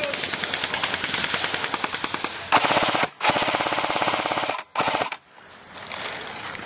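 Airsoft M60 replica firing on full auto: a rapid stream of shots, loudest in three long bursts from about two and a half to five seconds in, with short breaks between them.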